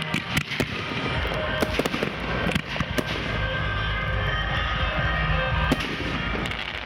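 Fireworks display: aerial shells bursting overhead in an irregular run of sharp bangs and crackles, with music playing underneath.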